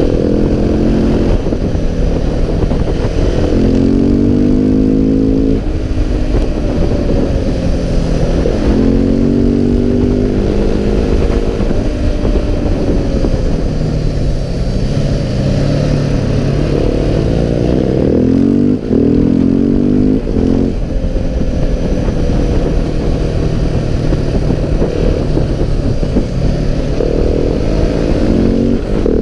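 KTM 690 SMC R supermoto's single-cylinder engine under way, revving up and easing off again and again. Its pitch climbs in several spells, each one ending in a drop.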